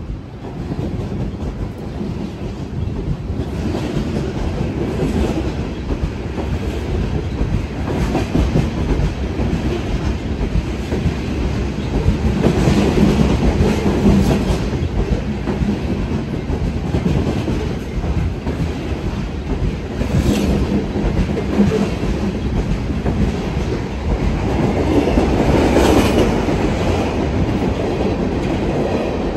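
Freight cars rolling past close by at speed: a continuous heavy rattle and rumble of wheels on rail and car bodies that grows louder over the first few seconds, with a couple of brief sharper peaks in the last third.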